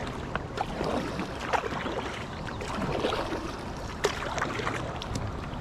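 Paddling a small boat: water splashing and dripping, with scattered light knocks and clicks of the paddle and hull.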